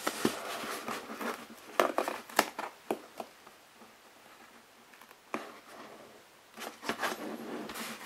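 Hands rubbing and pressing soft foam mask panels against each other as their edges are stuck into place. Irregular scuffs and light taps come in the first three seconds and again near the end, with a quieter stretch between.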